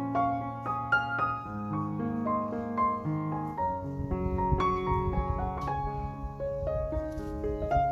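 Background piano music: a run of single melody notes over held low notes.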